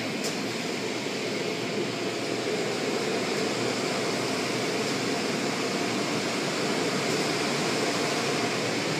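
Automatic car wash running around the car: water spray and spinning cloth brushes make a steady, even rushing noise, heard from inside the car.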